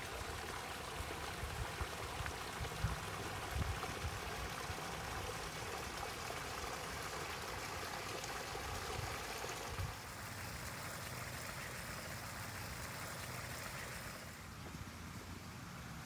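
Small garden fountain: water jets splashing into a rock-lined pool, a steady splashing that grows fainter about ten seconds in and again near the end. A few low thumps come in the first few seconds.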